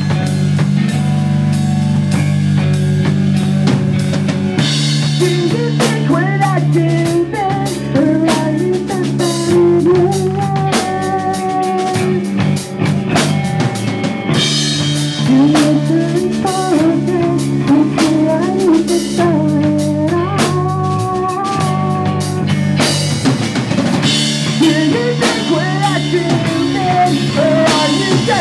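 A pop punk band playing live: drum kit with snare and bass drum over sustained guitar and bass chords, with a melody line weaving above from about five seconds in.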